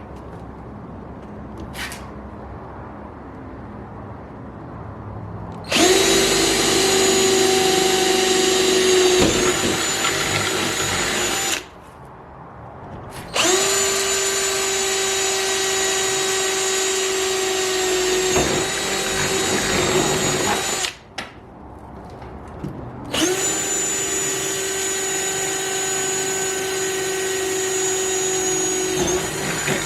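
Power drill running in three long runs of several seconds each at a steady pitch, drilling the rivet holes for a wickerbill spoiler extension on a Dodge Charger.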